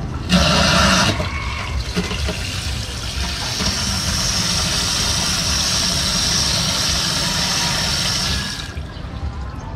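Water rushing through a stainless-steel float valve into a plastic water tank: a brief loud splash near the start, then a steady hissing flow that cuts off suddenly about a second before the end as the valve shuts.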